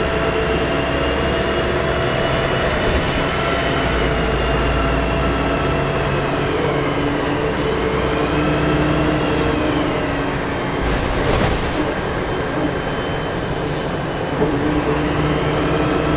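Volvo B10M bus's turbocharged six-cylinder diesel engine running under way, with a loud turbo whistle that rises and falls in pitch three times as the throttle opens and closes. A brief hiss comes about eleven seconds in.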